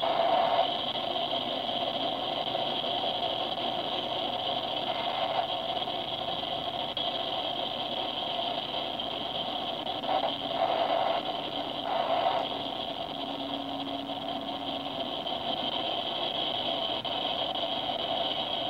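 Freight cars of a mixed freight train rolling past, their wheels running on the rails in a steady noise, with brief louder swells about ten and twelve seconds in.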